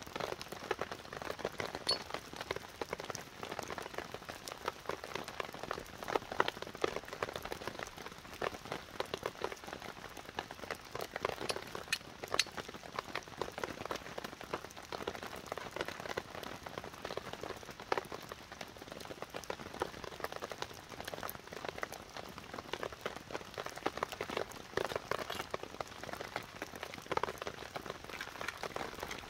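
Rain falling on a tarp shelter: a dense, irregular patter of drops that swells and eases a few times.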